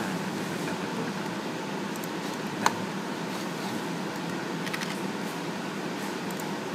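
Steady fan noise from running network equipment, with a few sharp key clicks: one loud click a little under three seconds in, and several fainter ones later as the Enter key is pressed.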